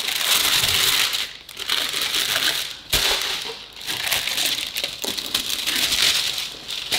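Tissue paper rustling and crinkling in repeated waves as hands fold it back inside a shoe box, with a brief knock about three seconds in.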